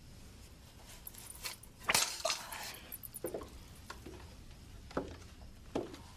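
Scattered clicks and knocks of a hinged wooden object being handled, the loudest clatter about two seconds in.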